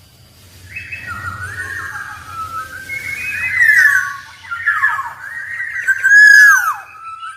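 Black-naped oriole singing: a continuous run of varied whistled phrases with sliding and down-slurred notes, loudest about halfway through and again about six seconds in.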